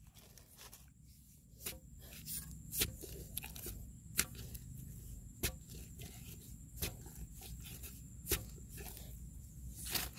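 Irregular sharp clicks and crunches of dry, cracked mud as a stick prods and breaks up clods in a dug hole, over a low rumble.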